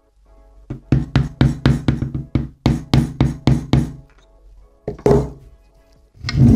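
Hammer tapping on a PVC pipe to drive a crankshaft oil seal into a Vittorazi Moster paramotor engine's crankcase, pressing it in flush: a quick run of about a dozen sharp knocks, about four a second, then two duller thuds near the end.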